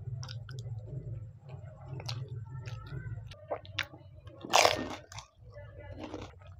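Close-up mouth sounds of eating: biting and chewing with small wet clicks, and a loud crunch about four and a half seconds in as a whole pani puri shell is bitten.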